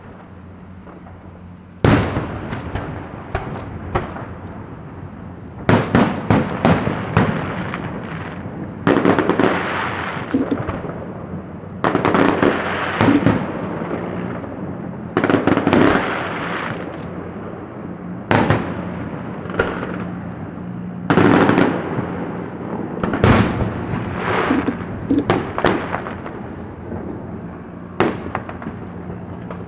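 Fireworks going off: a sharp bang every few seconds, each followed by a spell of dense crackling.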